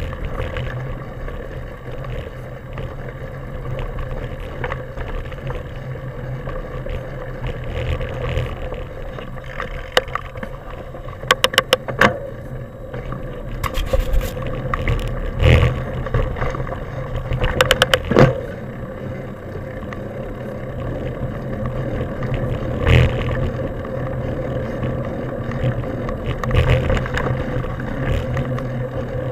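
Mountain bike ridden fast on a dirt forest trail: a steady rumble of tyres and wind against the microphone, with sharp rattling clatters from bumps now and then, several in quick succession about 11 seconds in.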